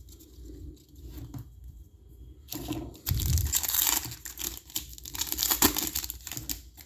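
Foil wrapper of a trading card pack being torn open and crinkled by hand, after light card handling; the crackling starts about two and a half seconds in and is loudest in the middle.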